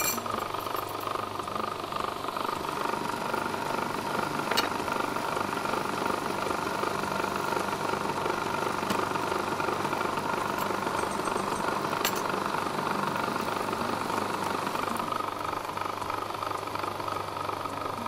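Electric food processor motor running steadily as it blends pumpkin, bulgur and flour into kibbeh dough, with a couple of faint clicks.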